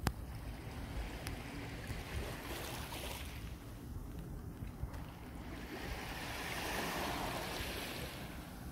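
Small sea waves lapping and washing over a shallow rocky shore, with a low rumble of wind on the microphone. A louder wash swells up about six seconds in and fades away near the end.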